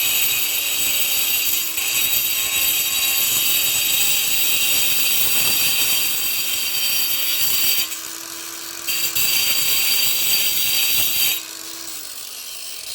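Cordless 20V angle grinder grinding old mortar off a brick: loud, harsh grinding over the motor's steady whine. It eases off for about a second around the middle, then the grinding stops and the motor winds down near the end.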